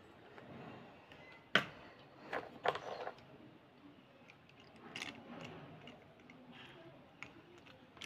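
Wet slate pencil handled and rubbed between fingers over a plastic basin: scattered sharp clicks and light scrapes. The loudest click comes about a second and a half in, a quick cluster follows around two and a half to three seconds, and another comes about five seconds in.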